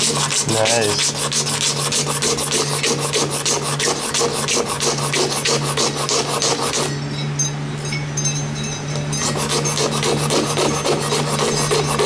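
Hand sanding oak trim, quick back-and-forth scratchy strokes, several a second, rubbing off old construction adhesive; the strokes pause for about two seconds partway through, then start again.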